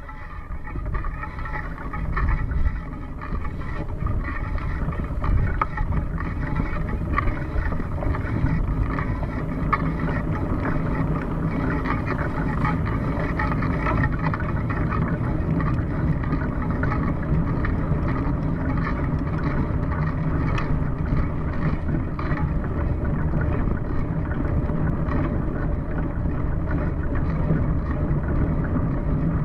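Bicycle riding over a rough, wet dirt track, heard through a bike-mounted camera: steady wind noise on the microphone and tyre rumble, with frequent small rattles and knocks over the bumps. It grows louder over the first two seconds, then holds steady.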